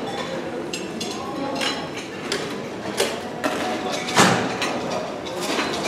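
Scattered clinks and knocks of dishes and serving utensils at a buffet, five or so sharp ones, the loudest about four seconds in, over a steady background murmur of the room.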